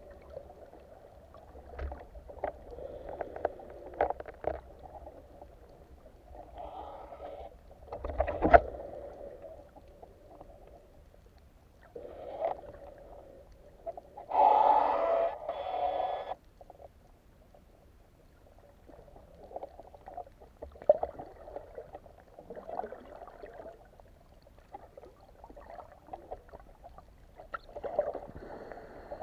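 Muffled water noise heard through an underwater action-camera housing as a diver moves, with scattered clicks and knocks and a louder burst of noise lasting about two seconds around the middle.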